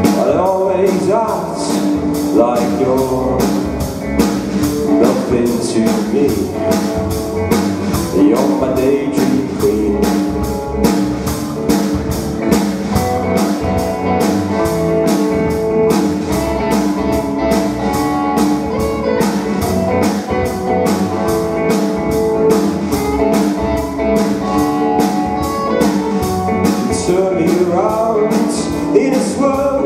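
Live rock band playing: two electric guitars, bass guitar and a drum kit keeping a steady beat, with a male lead voice singing at times.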